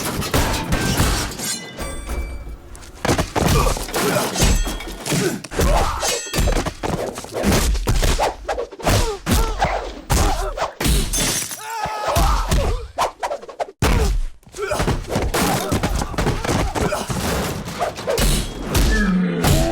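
Real-life fight sound effects: a fast, dense run of thuds, thunks and whacks, with smashing and shattering among them. There is a brief break about two-thirds through.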